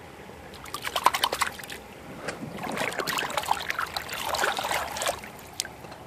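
Shallow creek water splashing and trickling in short bursts: a run of small splashes about a second in, then a longer stretch of sloshing and dripping from about two to five seconds in.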